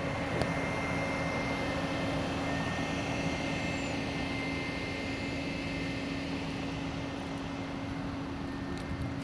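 Steady drone of running heavy machinery with a constant hum and no distinct events.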